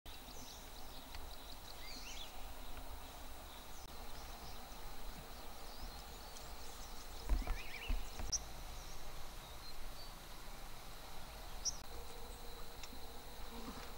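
Rural field ambience: scattered short bird chirps over a steady background hiss with a faint, steady high-pitched insect tone and a low wind rumble. A louder low thump comes about seven seconds in.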